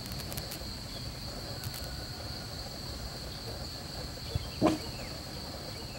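Insects chirring: a steady high-pitched drone over a low background hum, with one brief sharp sound about four and a half seconds in.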